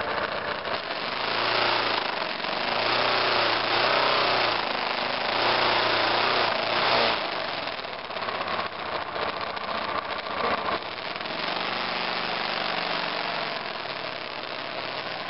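2002 BMW F 650 GS Dakar's single-cylinder engine running as the motorcycle rides along a rough trail, its revs rising and falling a little. A rushing wind and road noise covers it, loudest in the first half.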